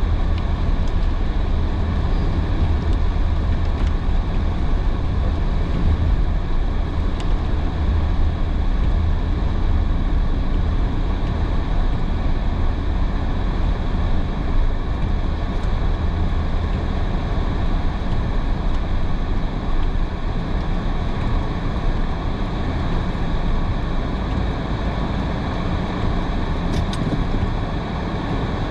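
Steady road noise inside a car driving in heavy rain: a continuous low rumble and hiss of tyres on a wet road, with a few faint ticks.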